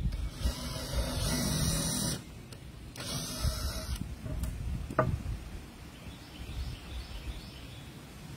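Power drill driving screws into cedar fence boards: a run of about two seconds, then a shorter run about three seconds in. A single sharp knock follows about five seconds in.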